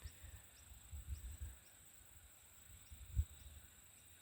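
Faint outdoor insect sound: a steady high drone with a faint regular chirp about twice a second. Low soft thumps come and go, one louder about three seconds in.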